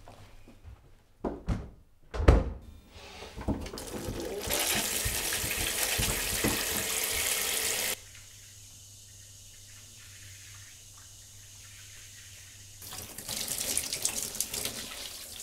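Two sharp knocks, then a handheld shower running, a steady hiss of spraying water that cuts off suddenly about halfway through and comes back near the end.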